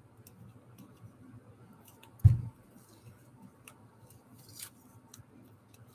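Hands handling a roll of painter's tape and silk flower petals: faint clicks and light rustles, with one dull thump about two seconds in.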